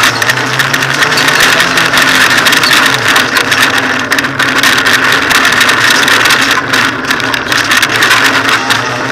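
Hyundai rally car's engine running under way, heard from inside the stripped cabin, its note holding fairly steady over a loud wash of road noise.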